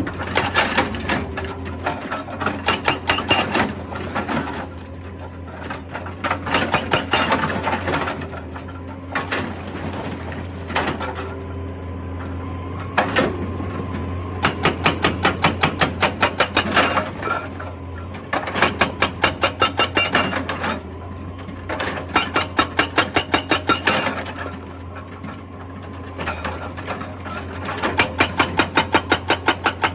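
Excavator-mounted hydraulic rock breaker hammering rock in repeated bursts of rapid, evenly spaced blows, each run lasting a few seconds, over the steady drone of the excavator's engine.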